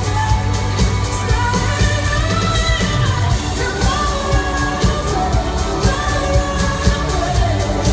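A woman singing lead live with a pop-rock band over a steady beat and heavy bass, recorded from the audience in an arena.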